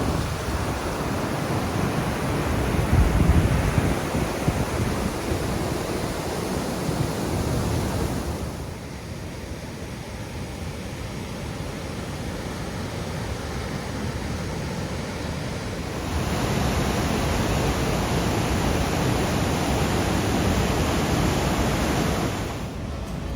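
Steady rush of river water tumbling through rapids and falls, a full, even hiss with deep rumble. Its level drops abruptly about a third of the way through and comes back up after about sixteen seconds.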